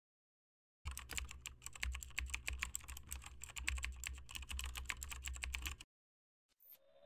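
Computer keyboard typing sound effect: rapid, irregular key clicks for about five seconds, stopping suddenly, while the text is typed out on screen. Just at the end a rising tone begins.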